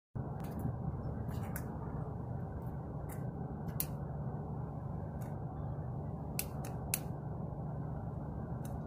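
Sharp metallic clicks and scrapes, about a dozen at irregular intervals, as a hand tool is worked against the metal inside a charcoal grill's firebox, over a steady low background rumble.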